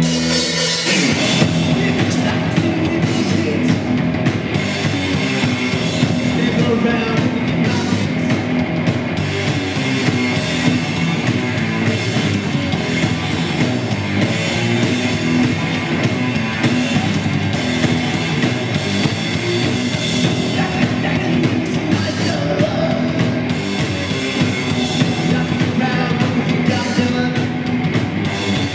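Live rock band playing loud: electric guitars, bass and drum kit. A held chord gives way to the full band about a second in, then it plays on steadily.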